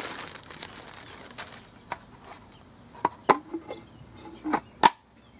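Handling of a new plastic gravity-feed sandblast gun: a fading rustle of its plastic bag, then scattered sharp clicks and knocks of the plastic hopper and parts, the loudest near the end.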